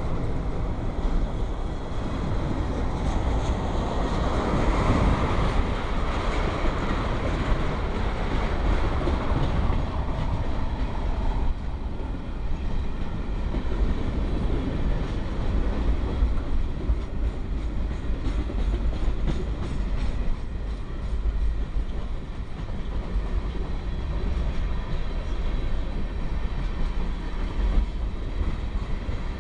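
Freight train cars rolling past in a steady heavy rumble, the wheels clicking over the rail joints. The sound swells louder for several seconds near the start, then settles back to an even rumble.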